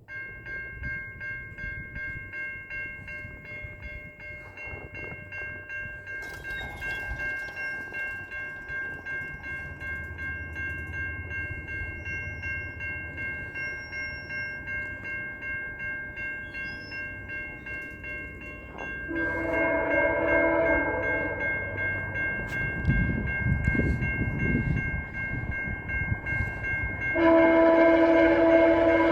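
A level-crossing bell rings with an even pulse. About 19 s in, and again more loudly near the end, the Nathan K1L13 horn on VIA F40PH-2D locomotive 6421 sounds its chord, with the 1L bell overblowing into a weird, creepy tone. The diesel rumble of the approaching train rises in between.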